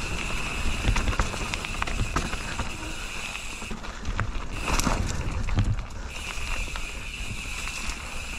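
Mountain bike being ridden on a dirt trail, heard from a GoPro on the rider: wind rumbling on the microphone over tyre noise and the rattle of the bike. A steady high buzz runs through it and drops out for about two seconds midway.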